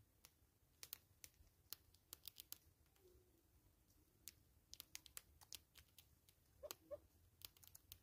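Faint, irregular sharp clicks and ticks of a Smith's bush squirrel nibbling seeds from the feeder, with a brief faint call about seven seconds in.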